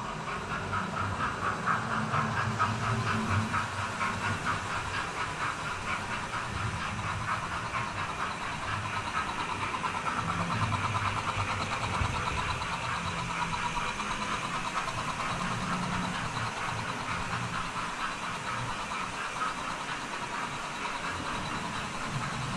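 Model trains running on the layout's track: a steady fine rattle of small wheels on rail with the hum of the locomotives' electric motors.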